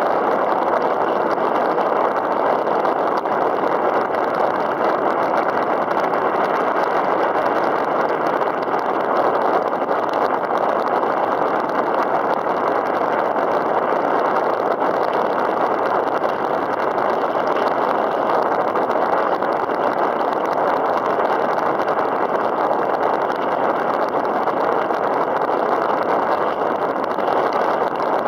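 Steady, even rushing noise of wind and water around a kayak on choppy open water.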